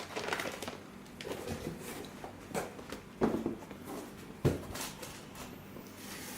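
Handling noises from a car-radio head unit and its packaging: scattered light knocks, clicks and rustles, with two sharper knocks about three and four and a half seconds in.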